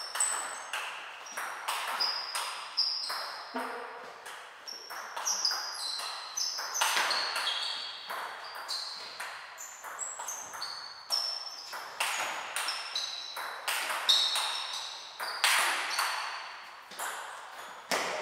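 Table tennis ball being struck back and forth in a rally: a quick string of sharp pinging clicks as the ball hits the rackets and the table, a couple of times a second.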